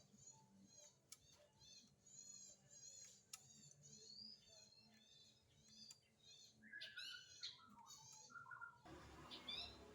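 Faint songbird chirping: quick, high, arched notes repeated several times a second, with a short run of lower, falling notes about two-thirds of the way in. A soft hiss comes in near the end, along with a few small clicks.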